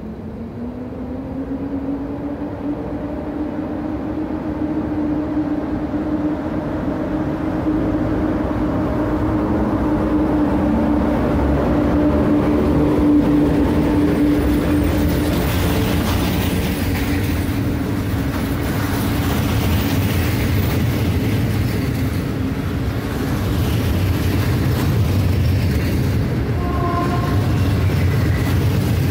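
EU07 electric locomotive starting away with a train and passing close by. Its hum rises in pitch at first, then holds steady. After that the coaches roll past with a growing rumble of wheels on rails.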